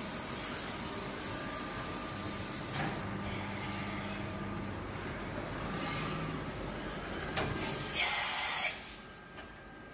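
DMG DMC 635V eco vertical machining center milling, a steady hiss and hum with faint whining tones from the spindle and cut. Near the end a short, loud hiss, after which the sound drops quieter.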